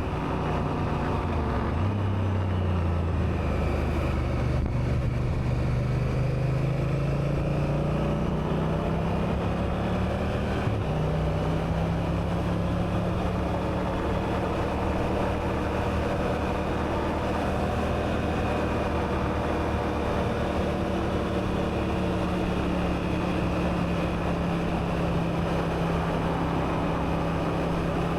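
Honda Africa Twin's parallel-twin engine running under way. Its note climbs over the first ten seconds or so, steps about eleven seconds in, then holds steady at cruising speed.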